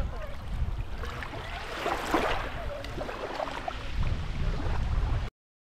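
Small waves lapping and washing over a shallow pebbly shoreline, with a low rumble underneath and a swell of water noise about two seconds in. The sound cuts off suddenly a little after five seconds.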